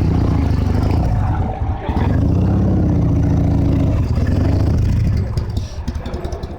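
Harley-Davidson V-twin motorcycle engine running, revved up and back down near the middle, then easing off near the end.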